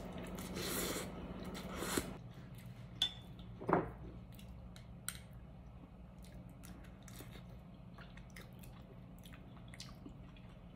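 A person slurping rice noodles for about two seconds, then quietly chewing, with scattered light clicks of chopsticks and a spoon against the bowl.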